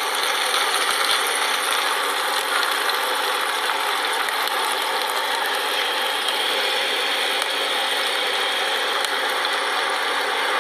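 Ninja air fryer running: a steady fan whir as the chicken leg quarters cook inside.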